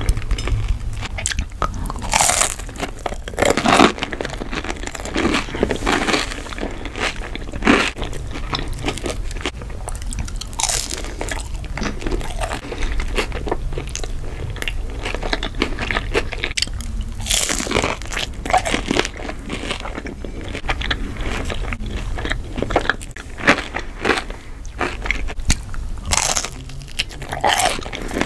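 A person biting into and chewing crispy breaded fried fish and shrimp: a run of crunchy bites with chewing between them.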